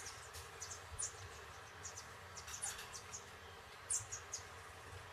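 Faint, irregular high-pitched chirping, several short chirps a second, over a low steady hum.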